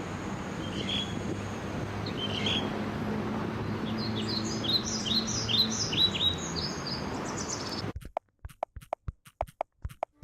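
Small birds chirping over a steady rushing background: a couple of single calls, then a quick run of chirps. About two-thirds of the way through, the sound cuts off abruptly into a series of sharp clicks.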